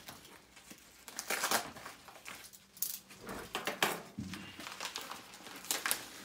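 A yellow padded paper mailer being handled and opened: short bouts of paper rustling and crinkling, with a few light knocks, several times over.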